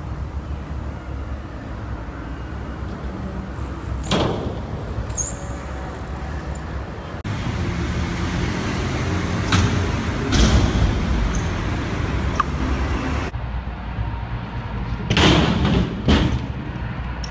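BMX bike being ridden on concrete: the tyres roll over a steady low rumble, broken by a handful of sharp knocks and clatters as the bike lands and hits ledges, the loudest near the end.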